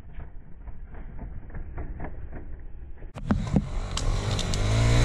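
Muffled rustling with irregular clicks, then after an abrupt cut about three seconds in, a dirt bike engine running close by, louder, with a few sharp knocks over it.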